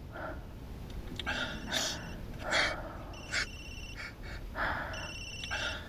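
Heavy breathing, with a phone's electronic trill ringing twice about two seconds apart, each ring about half a second long.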